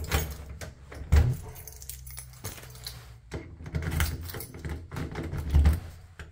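Keys jangling and clicking as they are tried in an interior door's lock and the doorknob is worked, with a few dull thumps; the lock does not open.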